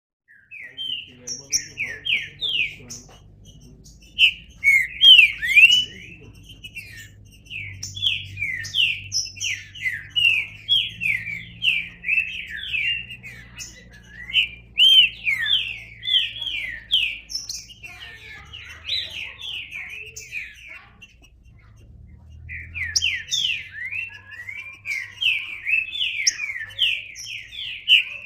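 Green-winged saltator (trinca-ferro) singing: phrases of quick, loud whistled notes, repeated with short pauses between them and one longer pause about three-quarters of the way through.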